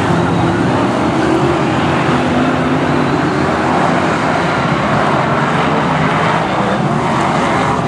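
A pack of BriSCA F1 stock cars racing, their V8 engines running loud and steady together with no break.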